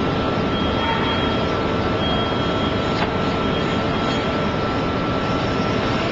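Forklift with a hydraulic coil clamp attachment running steadily as the clamp is worked, a constant whine over even machine noise, with two brief higher whines in the first few seconds.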